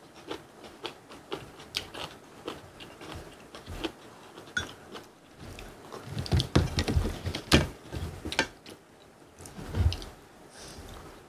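Close-miked eating sounds: chewing and biting of braised cutlassfish, kimchi and rice, with scattered small clicks of chopsticks and a spoon against bowls. The chewing grows louder and denser a little past the middle, with another loud mouthful near the end.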